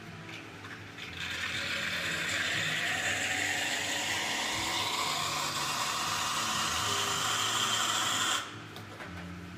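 Espresso machine steam wand hissing into a metal jug to heat water for sugar syrup. The hiss starts about a second in, its tone rises steadily as it runs, and it cuts off sharply after about seven seconds.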